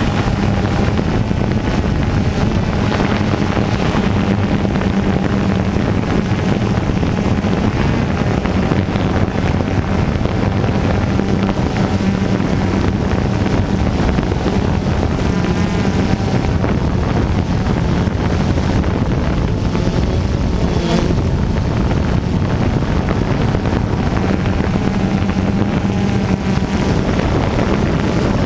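Steady, loud rush of falling water from the Namerizu Ōtaki waterfall.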